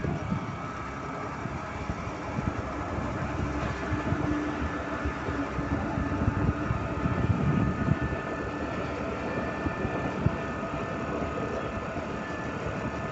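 Motor scooter engine running steadily while riding, with wind gusting on the microphone.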